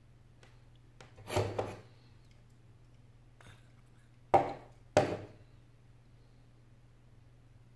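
Short hissing bursts from an aerosol spray can, aimed at the seam between a tablet's glass and its frame: one burst early on, then two quick ones about half a second apart.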